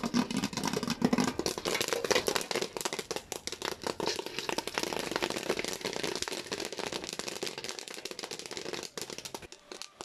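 Popcorn kernels popping in hot oil in an aluminium pot, a fast, dense, irregular crackle of pops, mixed with the rattle of popped corn being stirred in the pot. The pops thin out and fade toward the end as the batch finishes popping.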